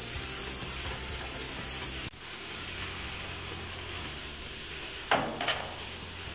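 Steady hiss of workshop background noise, which drops abruptly about two seconds in. Two short metallic clinks follow about five seconds in, from hand work on the car's steering tie rod during a toe alignment adjustment.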